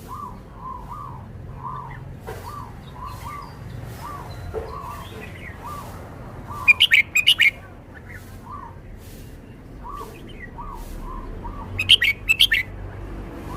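A caged red-whiskered bulbul singing: two short, loud phrases of quick bright notes, about seven and twelve seconds in. Throughout, a softer bird call repeats over and over at a lower pitch.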